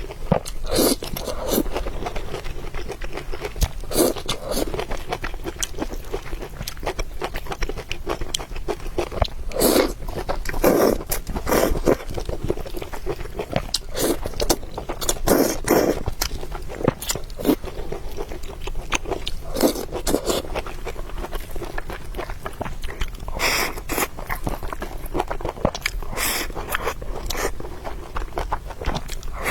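Close-miked eating sounds: chewing and biting, a string of irregular crunchy and wet mouth noises.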